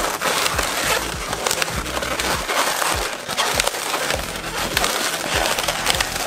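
Inflated latex modelling balloons rubbing and squeaking against each other and against the hands as they are twisted and locked into a loop, a dense run of squeaks, creaks and crinkles.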